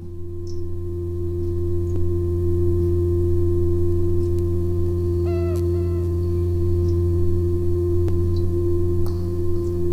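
A steady drone of sustained low tones fades in from silence, with two short pitched notes about five seconds in.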